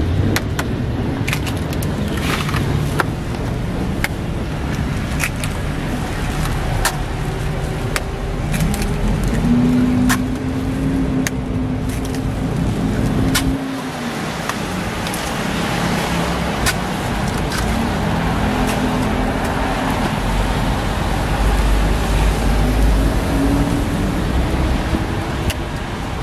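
Street traffic noise: motor vehicles running past with a low rumble. One engine note is held for a few seconds near the middle, then rising and falling pitches come toward the end. Scattered sharp clicks sound over it.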